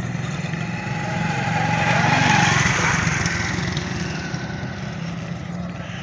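A motorcycle passes close by on a dirt road: its engine grows louder to a peak about two seconds in, then fades away. A steady low engine hum runs underneath.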